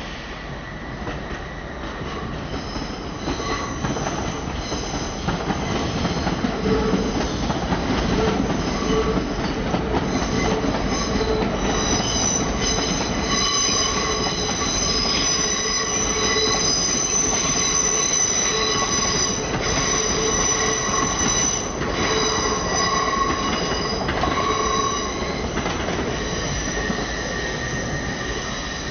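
Train wheels squealing against the rails as a train moves along the track, several high squeal tones over a steady rumble. The sound builds over the first few seconds and eases off near the end.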